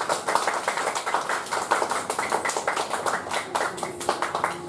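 Audience clapping, a steady patter of many hands that fades away near the end.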